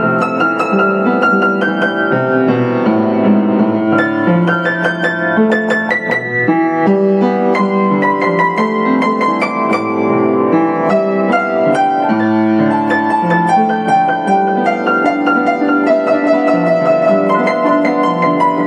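Yamaha U1J upright piano played solo, a continuous stream of overlapping notes with a melody running over the accompaniment.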